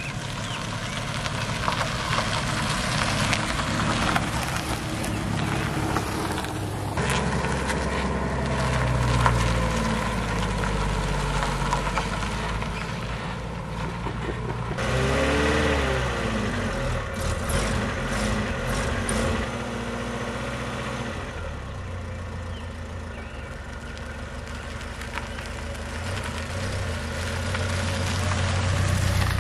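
Car engines running as vehicles drive. About halfway through, one engine note rises and falls briefly, as a car revs or passes.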